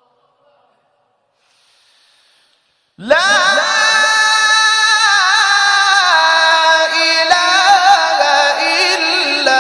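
Near silence for about three seconds, then a man's voice in melodic Quranic recitation (tajweed) starts suddenly and loudly, holding a long ornamented note whose pitch wavers and turns.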